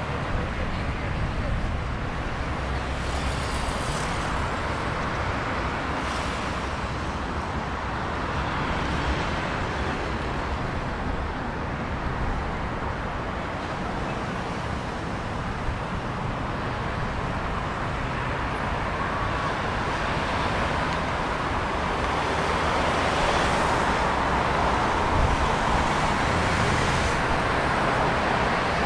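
Steady traffic on a multi-lane city avenue, with cars passing by one after another. It grows louder over the last several seconds.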